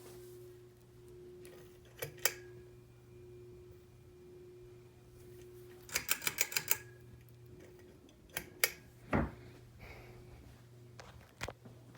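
Litex Diamond Crystal ceiling fan humming steadily, with sharp clicks over it: a pair about two seconds in, a quick run of about seven clicks in the middle, more clicks a little later and near the end, and one dull thump about nine seconds in.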